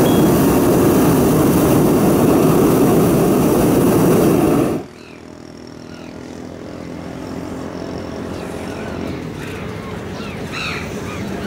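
Hot-air balloon's propane burner firing, a loud steady blast that cuts off suddenly about five seconds in. After that, birds call near the end.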